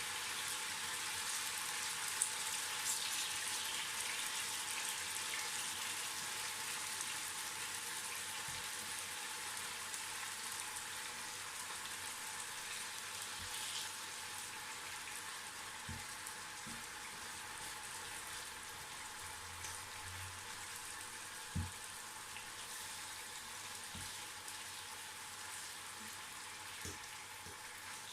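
Marinated chicken tocino frying in hot oil in a pan: a steady sizzle that slowly fades a little, with a few faint knocks.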